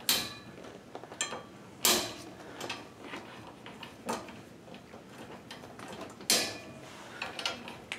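Plastic clamps on a Summer top-of-stairs baby gate being snapped shut against the wall-mount brackets: three sharp clicks, one at the start, one about two seconds in and one about six seconds in, with light plastic taps and rattles between.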